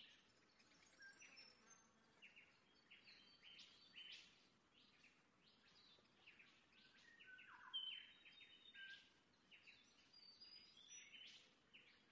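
Faint chirping of small birds: many short, high calls one after another, with a lower falling call about eight seconds in.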